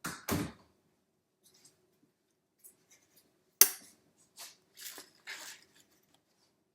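Metal kitchen utensils scraping and clicking against a pan or plate while cooked beef is shredded: two dull knocks at the start, a sharp click a few seconds in, then a few short scrapes.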